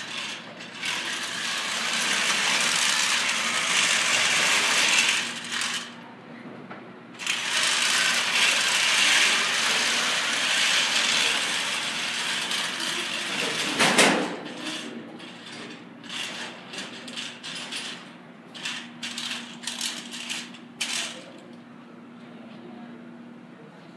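FRC competition robot's drive motors and gearboxes whirring as it drives, in two long runs and then a string of short stop-start bursts. One sharp knock partway through.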